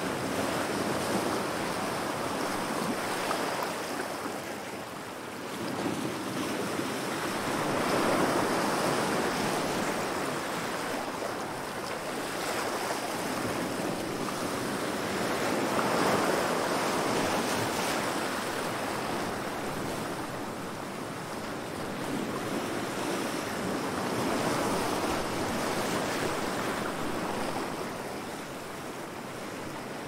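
Ocean surf: waves rolling in and washing onto the shore, a continuous rushing that swells and eases about every eight seconds.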